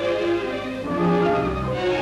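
Orchestral background music: a run of held notes that change pitch every half-second or so.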